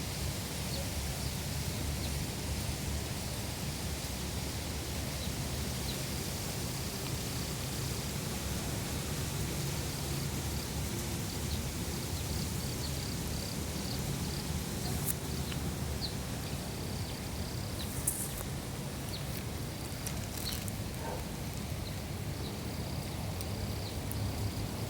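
Outdoor nature ambience: a steady low rumble and hiss, with short, high chirps repeating again and again and a couple of sharp clicks in the second half.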